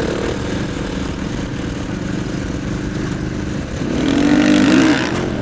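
Motorcycle engine running off-road, steady at first, then revving up about four seconds in and dropping back just before the end.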